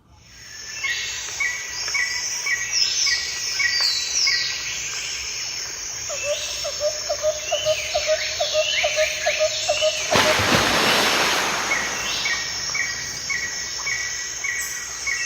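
Several birds calling and singing outdoors, one repeating a short chirp about three times a second, with a lower rapid pulsing call in the middle. A loud rush of noise cuts in around ten seconds in and lasts about two seconds.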